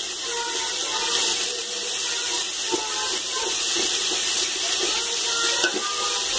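Chopped onions frying in hot oil in a metal pot: a steady sizzling hiss, with a few soft scrapes of a perforated ladle stirring them.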